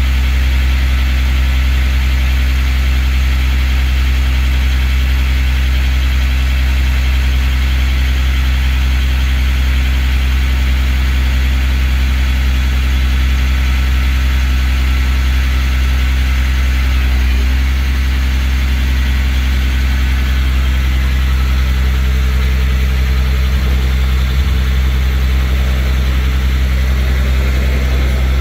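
Rollback tow truck's engine idling steadily with a deep, even hum while its hydraulic bed tilts back, the note shifting slightly a little past halfway through.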